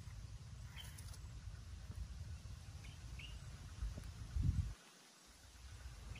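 Outdoor riverside ambience: a steady low rumble with a few short bird chirps. A dull thump comes about four and a half seconds in, and the sound dips briefly after it.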